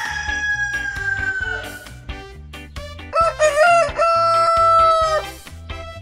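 Rooster crowing twice over background music with a steady beat. The first crow falls slowly in pitch and fades out about two seconds in. The louder second crow starts about three seconds in, broken at first, then ends in a long held note that cuts off about five seconds in.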